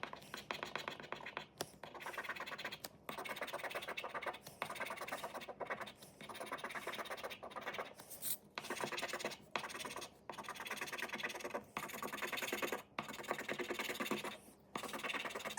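A scratch-off lottery ticket (Speetto) being scratched in repeated quick back-and-forth strokes, in bouts of a second or two with short pauses between.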